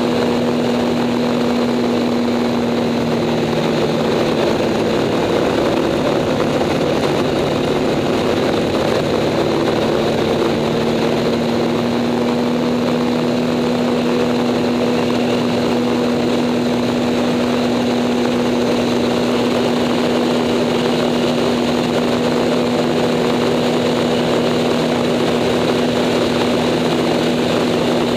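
Acroduster SA750 biplane's piston engine and propeller running at steady power in flight, heard from the cockpit as a constant drone over rushing wind.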